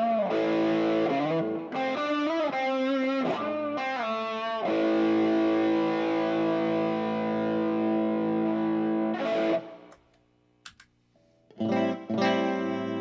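Tokai Silver Star electric guitar played through an amp: quick phrases with bent and wavering notes, then a chord left to ring for about five seconds. It cuts off for a moment, and near the end chords start again.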